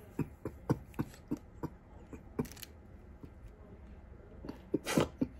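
Close-up chewing and mouth clicks from someone eating a soft snack cake, about three clicks a second at first. A louder, sudden noise comes near the end.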